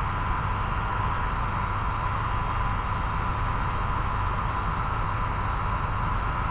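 Hand-held heat gun blowing hot air steadily, a constant rushing with a thin, steady whine, as it softens vinyl wrap film so it can be pressed around a rounded panel corner.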